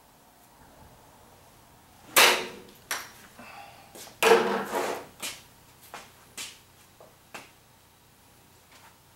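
A golf club strikes a ball off a hitting mat into a practice net with a sharp crack about two seconds in. About two seconds later comes a second loud knock, followed by several lighter clicks and taps that thin out.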